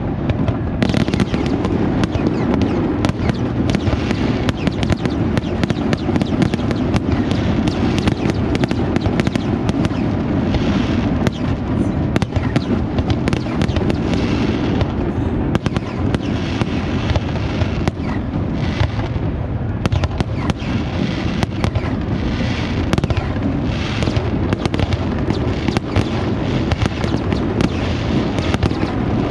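Zambelli fireworks display: a dense, continuous barrage of shell bursts and crackle, many bangs a second over a low rumble, with no let-up.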